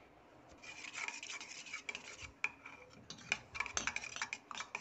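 A wooden spoon stirring yogurt raita in a stainless steel bowl, with wet scraping and irregular clicks and knocks against the sides of the bowl.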